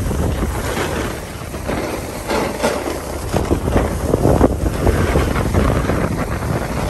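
Wind buffeting the microphone of a snowboarder riding fast downhill, mixed with the hiss and scrape of the snowboard on packed snow. The hiss grows brighter about two and a half seconds in.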